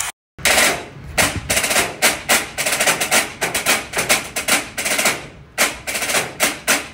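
Rapid, irregular volleys of sharp bangs, several a second, starting after a brief silence.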